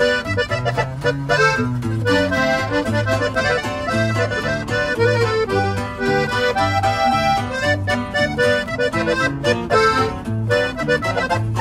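Instrumental music with a steady bass beat.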